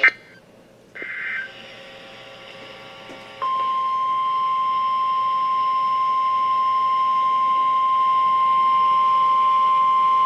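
A click, then a short higher-pitched electronic burst about a second in. About three and a half seconds in, the NOAA Weather Radio 1050 Hz warning alarm tone starts and holds as one steady tone, the signal that a warning message follows.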